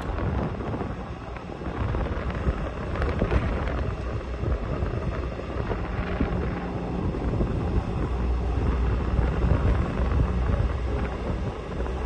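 Wind buffeting the microphone over a low, steady rumbling drone, with a faint hum that becomes steadier about halfway through.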